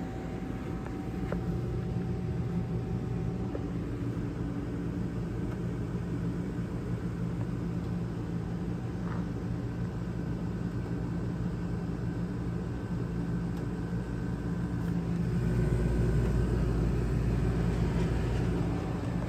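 Heat pump running on heat just after start-up: a steady mechanical hum that swells into a louder, low rumble about fifteen seconds in.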